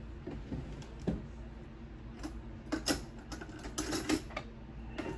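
Scattered light clicks and knocks, several of them at uneven intervals, over a steady low hum.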